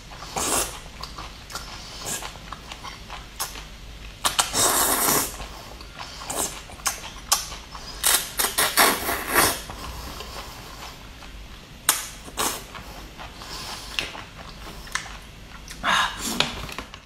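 Mouth noises of eating a wide noodle coated in chili oil and chili flakes: repeated slurps, the longest about four seconds in and a cluster around the middle, with chewing between them.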